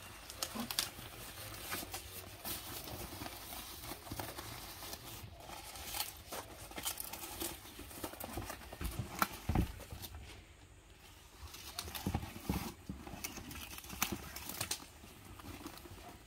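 Banana leaves rustling and crackling as they are folded and pressed around a bougna parcel, with irregular light knocks and clicks from the handling.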